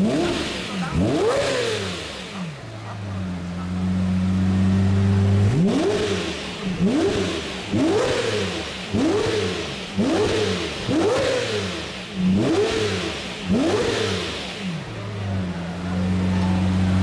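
Lamborghini Murciélago LP640's 6.5-litre V12 idling, then revved: one long blip at the start, a spell of idle, then a string of about eight quick throttle blips roughly a second apart before it settles back to idle near the end.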